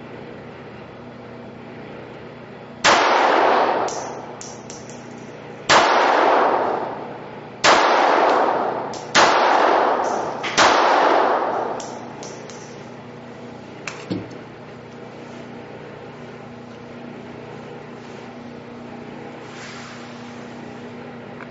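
Five pistol shots from a Sig P232 .380, fired one-handed at an uneven pace, the gaps shortening from about three seconds to under a second and a half. Each shot rings on for about a second in the echo of an indoor range. A couple of faint metallic clicks follow a few seconds after the last shot.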